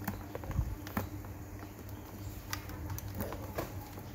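Light, scattered clicks and taps from handling a corded electric drill and its power cord on a workbench, over a faint steady low hum.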